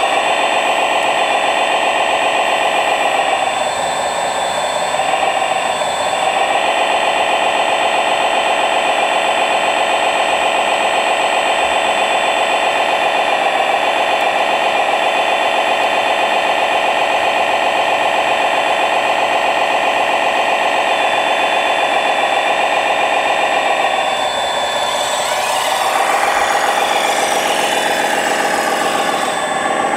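1/14-scale radio-controlled construction machine running, a steady high whine from its electric motors and hydraulic pump that shifts slightly in pitch as it works. Near the end it turns rougher and noisier, with sweeping rises and falls in pitch.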